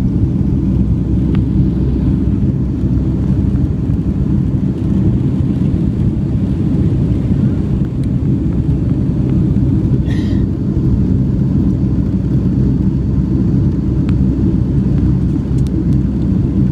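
Steady low rumble of a jet airliner's engines and airflow heard inside the cabin during the climb after take-off.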